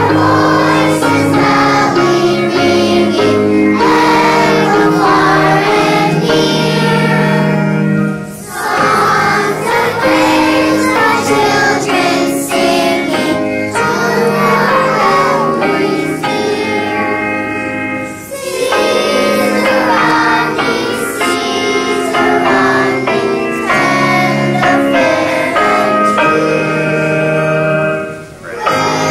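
A group of kindergarten children singing a school song together, with keyboard accompaniment holding steady notes underneath. The singing pauses briefly three times, between phrases.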